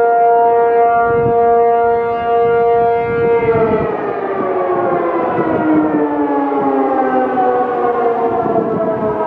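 ACA P-50 electromechanical civil-defense siren holding its steady Alert tone, then starting to wind down about three seconds in, its pitch falling slowly.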